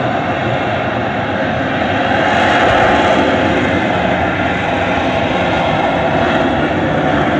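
Harrier jump jet's Rolls-Royce Pegasus vectored-thrust turbofan heard in flight: a loud, steady jet rush that swells slightly a couple of seconds in.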